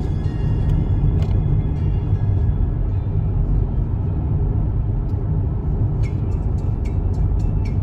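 Steady low rumble of tyre and engine noise inside a moving car's cabin, with background music faintly over it; light ticking joins in about six seconds in.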